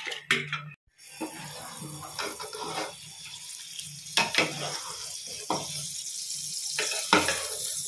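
Water sloshing and splashing in a large pot as soaked rice is tipped in and stirred by hand and with a ladle, over a steady hiss, with a few sharper splashes.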